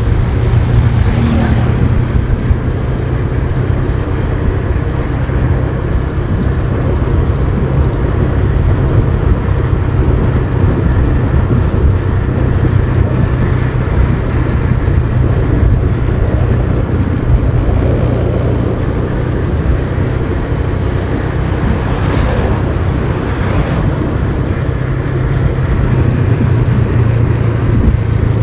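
Motorbike engine running steadily under way, with road and air noise, heard from on the moving bike.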